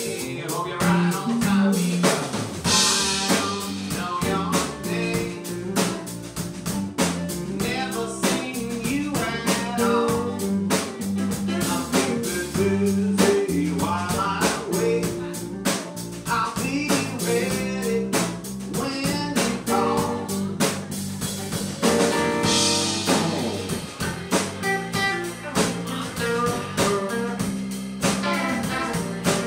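A live band playing a song: electric guitar, bass and drum kit with vocals over a steady beat, and cymbal crashes about 3 seconds and 23 seconds in.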